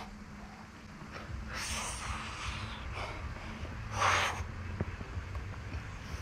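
A man breathing hard from the exertion of a high-volume pull-up workout: a few loud breaths about two seconds apart, over a steady low hum.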